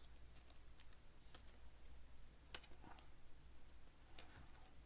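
Faint, scattered clicks and light rustling of baseball trading cards being handled, over a low steady hum.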